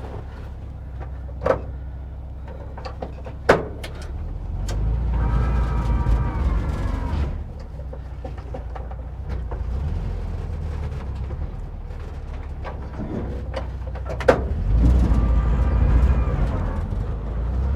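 Vintage VW split-window bus's air-cooled flat-four engine running low, then revved up twice for a few seconds each time as the bus strains to climb out of a trail rut. A few sharp knocks come through in between.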